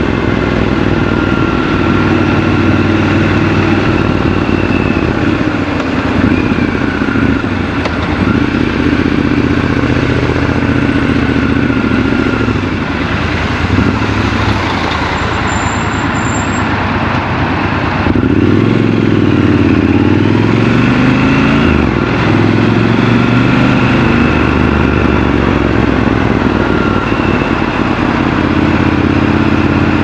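Triumph Scrambler 1200 XC's 1200 cc parallel-twin engine running while the bike is ridden, heard from the rider's seat over wind and road noise. Its pitch rises and falls with the throttle and gear changes, with a brief drop about two-thirds of the way through before it pulls again.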